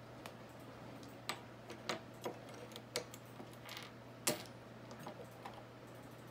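Lego bricks clicking and clattering as a child handles them at a pile on a wooden table and sets them into a cardboard egg crate: about eight light, scattered clicks with a short scrape, the loudest click about four seconds in.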